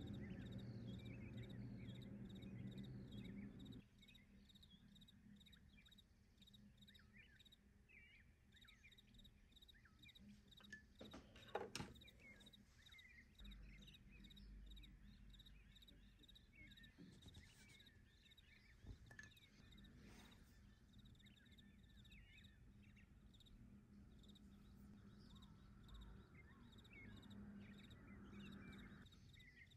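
Near silence: faint room tone with scattered faint high chirps. A low hum in the first few seconds cuts off abruptly, and a single short tap comes about two-fifths of the way in.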